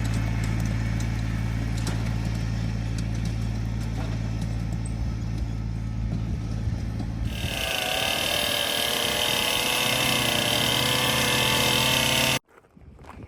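Wood chipper's engine running steadily. About seven and a half seconds in, the sound changes to a higher whine, which cuts off abruptly near the end.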